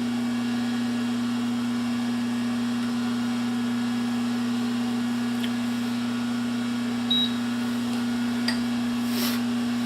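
Metal lathe running with a steady low electrical hum, and a few light clicks and a short scrape near the end.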